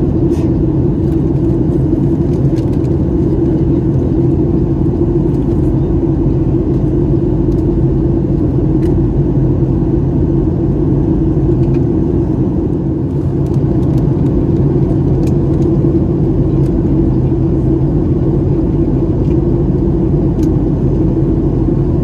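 Steady cabin drone inside a Boeing 737-8 MAX in flight: the CFM LEAP-1B engines and airflow make an even, low rumble that does not change, with a few faint clicks.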